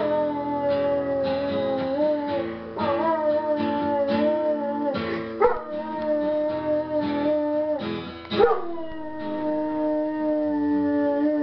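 Bouvier des Flandres howling along to a strummed acoustic guitar: long held howls, each new one breaking in with a quick swoop in pitch, about three seconds apart.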